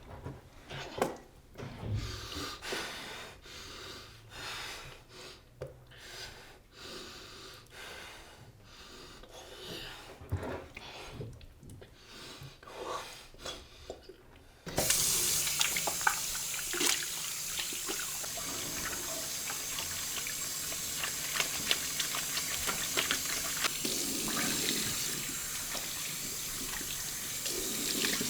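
A tap running into a sink, starting suddenly about halfway through as a steady splashing hiss and cutting off at the end. Before it, faint scattered knocks and rustles.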